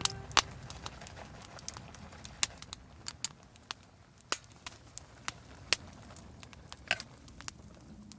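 Wood campfire crackling: irregular sharp pops and snaps, a few a second, over a low steady rush of burning.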